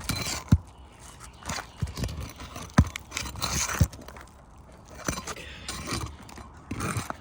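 Brittle asphalt shingles scraping and crackling as a metal shingle-removal tool pries under them to free a nailed shingle, with several sharp knocks, the loudest about half a second, nearly three seconds and nearly four seconds in.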